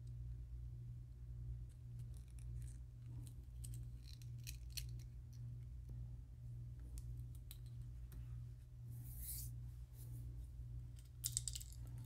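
Faint clicks and scrapes of hands handling hinged alligator-lure sections on a workbench, over a steady low hum. There is a brief hiss about nine seconds in and a quick run of louder clicks near the end.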